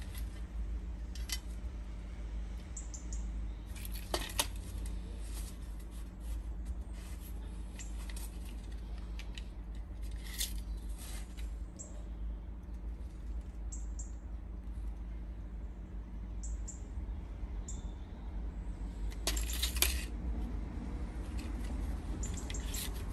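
Steel tape measure clicking and rattling as it is pulled out and set against a screed rail to check the bedding depth, a few sharp metallic clicks with the loudest about four seconds in and again late on. A steady low rumble runs underneath.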